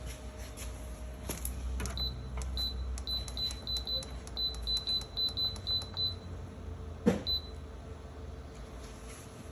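Alpicool CR50 car fridge's control panel beeping as its buttons are pressed: about a dozen short, high beeps in quick succession, then a sharp knock and one last beep.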